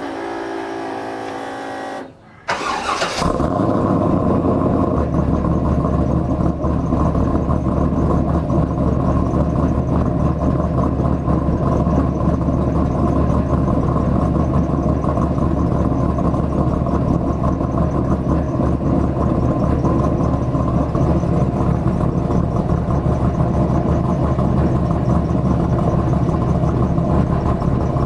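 Chevrolet Camaro V8 starting about two and a half seconds in with a brief flare, then idling steadily.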